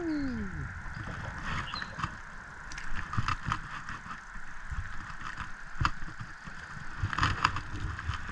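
A hooked fish being fought and landed on light spinning tackle: irregular clicks and knocks from the spinning reel and from tackle being handled in the jon boat, over a steady hiss. A short falling cry at the very start.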